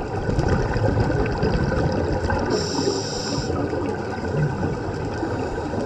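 Underwater sound of a scuba diver breathing through a regulator: a steady bubbling, crackling rumble of water and exhaust bubbles, with a hiss of about a second some two and a half seconds in.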